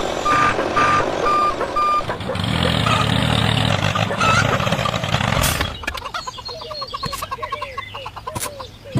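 A truck's reversing alarm beeps about twice a second for the first two seconds. A vehicle motor then runs for about three and a half seconds. Chickens cluck through the last three seconds.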